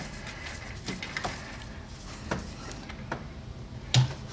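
A few faint, scattered clicks of the breaker bar's extension and socket as they turn out a freshly loosened 17 mm transmission fill bolt, with one sharp metallic click about four seconds in.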